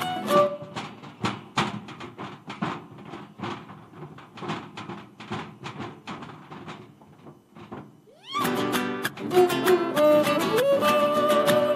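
Malambo zapateo: dancers' boots striking and brushing a wooden stage in a fast, dense rhythm of stomps, with the guitar dropping away after the first second and the footwork growing quieter. About eight seconds in, a violin slides upward and the folk accompaniment of violin and guitar comes back in loudly.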